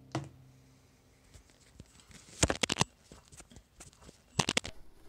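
Two short bursts of rapid clicking and tapping, about two seconds apart, as a hand handles the camera close to the microphone. A held music note fades away at the start.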